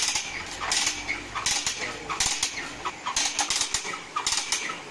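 Band saw blade setting machine (a 'Chapra machine') running, its mechanism clacking in an even rhythm, one short metallic clack about every 0.8 s, as its small piston works on the bandsaw blade.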